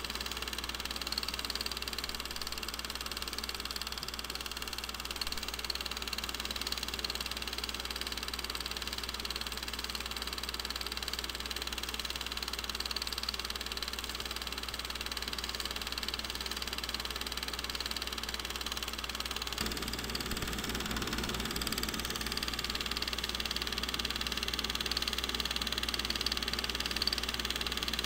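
Film projector running: a steady mechanical whirr and clatter over a low hum, the low rattle growing a little stronger about twenty seconds in.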